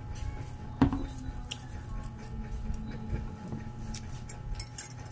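Cutlery and dishes clinking at a meal table, with one sharp knock about a second in and fainter clinks after, over a steady low hum.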